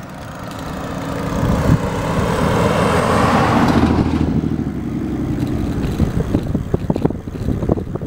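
Rush of wind and road noise building as an electric bicycle on a 1000 W rear hub motor accelerates under throttle. It swells for the first few seconds, then turns into irregular wind buffeting on the microphone from about six seconds in.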